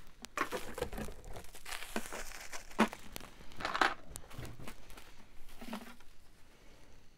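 Irregular crinkling and rustling of packing material, with a few light clicks, as costume jewelry brooches are handled and picked out of a box.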